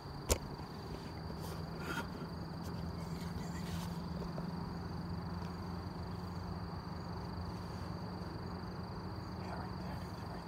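Steady high-pitched insect trill, with a low hum beneath. One sharp click comes about a third of a second in.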